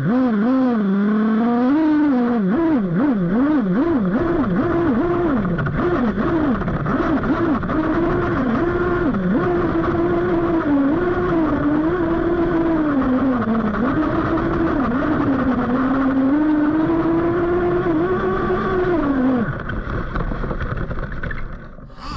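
Kyosho Inferno NEO 3.0 1/8-scale buggy's .21 nitro engine revving up and down as the throttle is worked, heard from on board, running rich. It surges in quick repeated blips at first, then is held high with short dips, and drops back to a lower, quieter note near the end.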